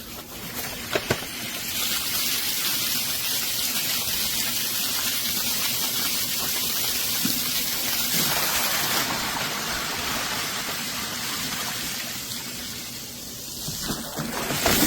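Water rushing out of a Green Expert submersible sump pump's 3/4-inch PEX discharge line: a steady gushing hiss that starts about two seconds in, after a couple of clicks, and eases off near the end.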